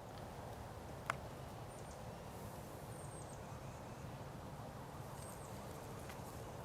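Faint outdoor woodland ambience with a low steady rumble, a few short, very high bird chirps, and a single sharp click about a second in.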